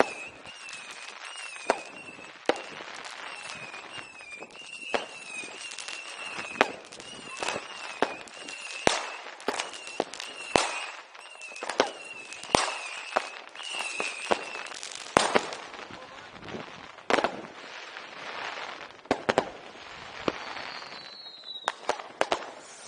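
New Year's Eve firecrackers and fireworks going off, with sharp bangs at irregular intervals over a crackling background. A wavering high-pitched tone runs until about two-thirds of the way through, and a short falling whistle sounds near the end.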